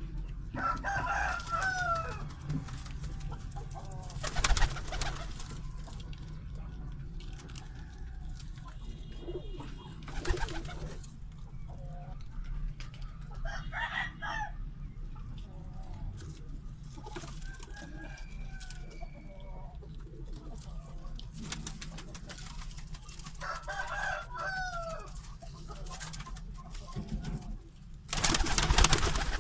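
Domestic pigeons cooing, with higher bird calls now and then over a low steady hum. A few brief, louder rustles break in.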